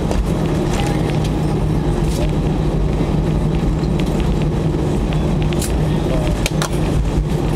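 Cabin noise of an Airbus A320 on its landing roll-out: a loud, steady rumble of the engines and the wheels on the runway, with a low hum and a few short rattles from the cabin.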